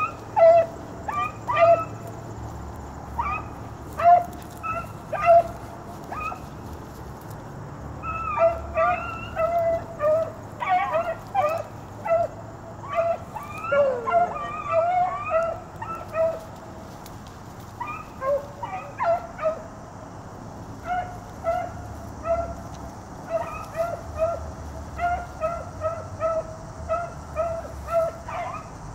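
A hound's short, choppy barks in quick runs with brief pauses between them: chop-mouth barking as it trails a rabbit.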